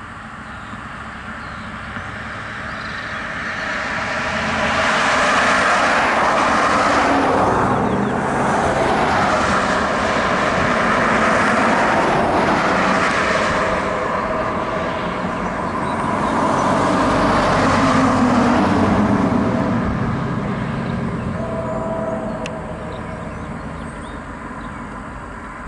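A train passing close by: the rumble of its wheels and cars swells up over a few seconds, stays loud for about fifteen seconds, then fades away.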